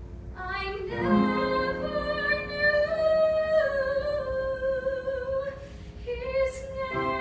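A woman singing a musical-theatre ballad, holding one long note for several seconds and starting a new phrase near the end, over instrumental accompaniment. She sang it three weeks after a tonsillectomy, which she says shows in her voice.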